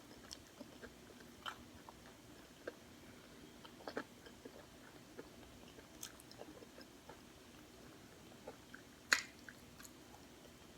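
Faint mouth sounds of a person chewing food close to the microphone: scattered soft clicks and smacks, with one louder click about nine seconds in.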